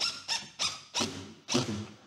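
A cordless drill drives a screw into a metal attic-hatch frame in five short, squeaky bursts, about three a second, the last one longest.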